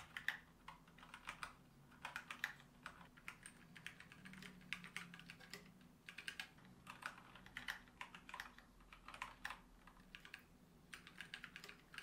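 Quiet typing on ZSA split mechanical keyboards with Kailh Box Brown tactile switches: first the ErgoDox EZ, then from about halfway the Moonlander. The key strokes come fast and uneven, with a short pause near the middle.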